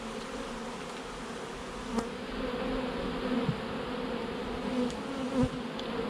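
Honey bees buzzing steadily in a low hum around an open hive colony, with one sharp click about two seconds in.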